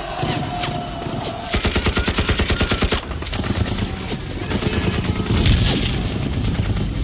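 Battle gunfire: a machine gun fires a rapid burst of about eight shots a second for a second and a half, then massed rifle and machine-gun fire continues, with a heavy blast about five and a half seconds in.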